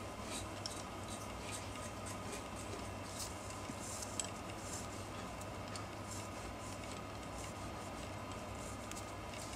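Pen nib scratching on paper in quick, irregular short strokes as lines are inked onto a manga page, over a steady low electrical hum.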